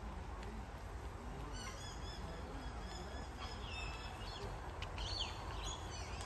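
Birds calling, a string of short, repeated calls that starts about a second and a half in and runs until near the end, over a steady low rumble.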